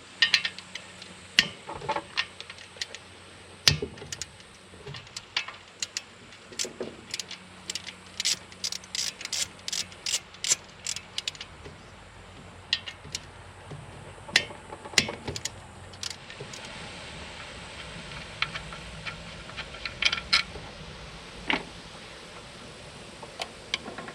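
Ratchet wrench clicking in quick runs and metal tools and bolts clinking while the bolts of the engine's front cover are undone. The densest run of clicks comes about eight to eleven seconds in.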